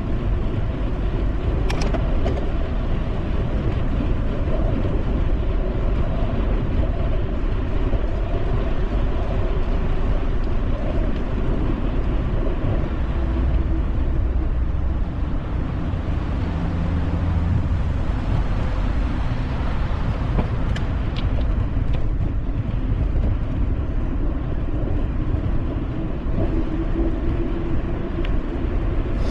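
Steady rumble of wind and road noise from a bicycle riding along a cycle path, with traffic running on the road alongside. A couple of brief clicks cut through, about two seconds in and again around twenty seconds.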